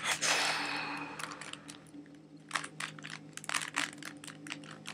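3x3 Rubik's Cube layers being turned by hand, a quick irregular run of plastic clicks and clacks. It opens with a short rush of noise that fades over about a second and a half.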